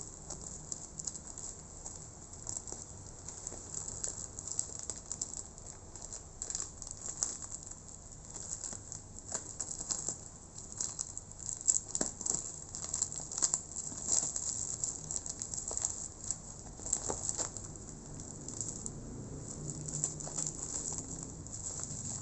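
Parcel packaging being handled and opened: irregular rustling and crackling with many small clicks and taps.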